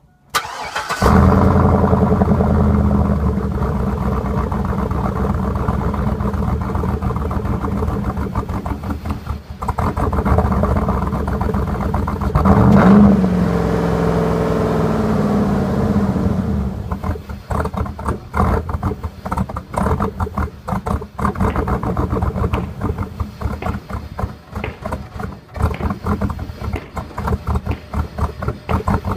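Chevrolet Silverado 5.3-litre V8 with no mufflers on a custom 3-inch exhaust, cranked and catching within about a second, then running loud at a fast idle. About 12 seconds in the engine revs up once and falls back. From about 17 seconds it settles to a lower, pulsing idle.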